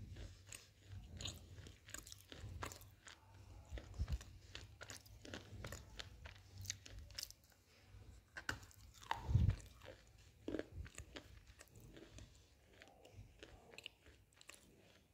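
A person biting and chewing a dry slab of black shale stone close to the microphone: irregular sharp crunches as pieces break off and are ground between the teeth, with one louder crunch a little past the middle.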